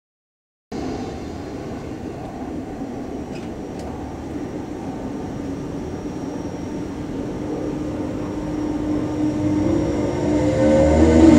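Electric multiple-unit passenger train moving off past the platform: a steady rumble of wheels and running gear that grows louder, with the traction motors' whine rising in pitch over the last couple of seconds as it accelerates. The sound begins abruptly under a second in.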